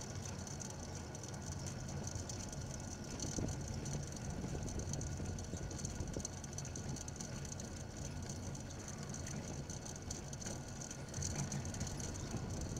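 Steady wind and road noise from a moving bicycle, picked up by a camera mounted on the bike, with a light rattle.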